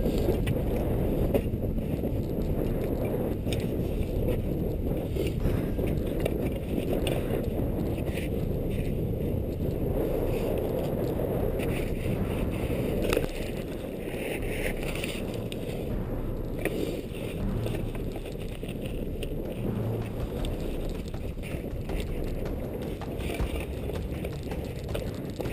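Wind buffeting the microphone of a helmet-mounted GoPro in a steady low rumble, with scattered scrapes and knocks as the climber brushes against snow-covered rock. The rumble drops in level about halfway through.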